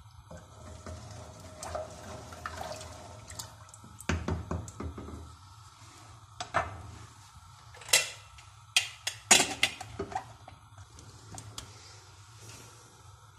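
A wooden spatula stirs soaked chickpeas in water in a stainless steel pressure-cooker pot, with soft scraping and sloshing. Then come a series of sharp metal clanks and clicks as the pressure-cooker lid is handled and fitted, loudest a little past the middle.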